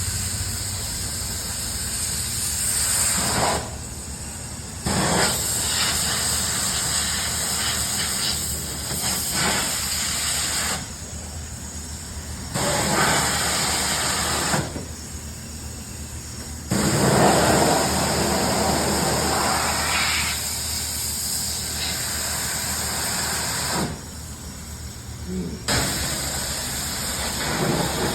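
Swapped-in LS V8 engine running at idle with a steady low hum and a loud hiss over it. The sound jumps abruptly in level several times.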